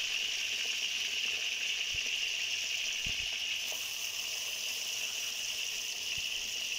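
Tempe pieces deep-frying in a pan of hot oil, a steady even sizzle.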